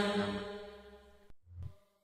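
A man's chanted Quran recitation: the held last syllable of a verse fades out over about a second, then dead silence, broken only by a brief faint sound about one and a half seconds in.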